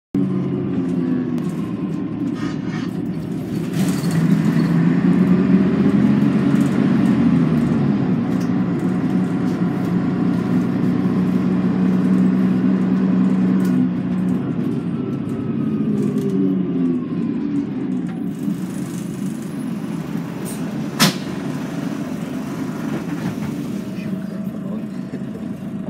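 Scania N113CRB bus's straight-six diesel engine heard from inside the passenger cabin, getting louder about four seconds in as the bus accelerates, its note rising and falling through gear changes before settling as it cruises. A single sharp knock late on.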